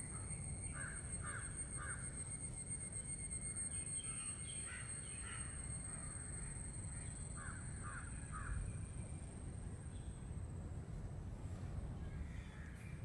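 A crow cawing, in runs of three short caws about a second in and again about seven seconds in, with a few more between. A thin steady high tone runs underneath.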